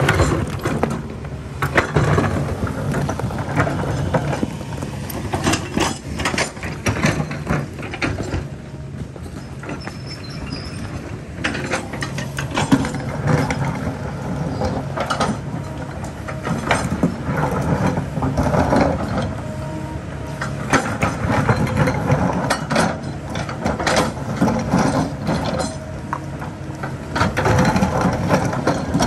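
Kobelco excavator's diesel engine running steadily under load, with repeated clanks, knocks and scrapes of the steel bucket working against rock.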